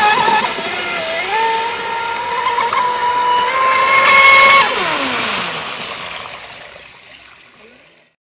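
RC speedboat's brushless electric motor whining at high speed over the hiss of the hull on the water. The pitch dips about a second in and then holds. Around four and a half seconds in the throttle is cut, the whine falls steeply in pitch as the motor spins down, and the sound fades out.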